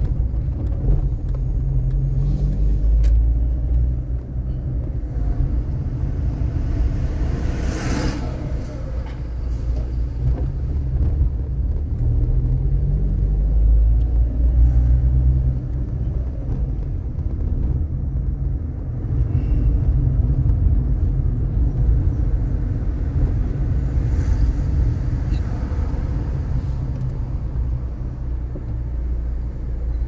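Car engine and road noise heard from inside the cabin while driving, the engine rising in pitch as it speeds up twice. A short knock sounds about eight seconds in.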